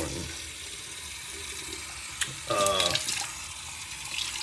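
Tap water running steadily into a sink, with a sharp click a little after two seconds in and a brief vocal sound just after it.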